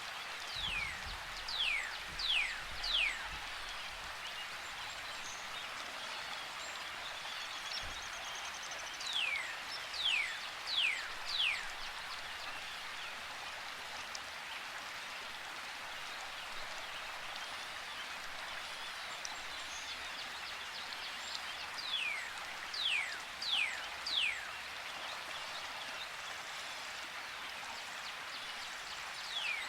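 A river flowing in a steady rush, with a songbird calling a quick run of three or four falling whistles, four times over.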